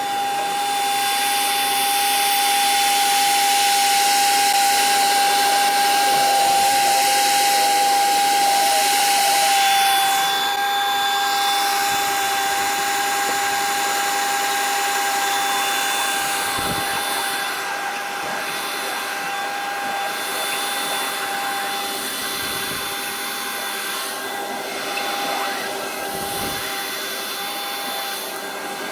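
An electric motor running steadily with a high, constant whine and a hiss over it. The pitch sags slightly about ten seconds in, as if under load.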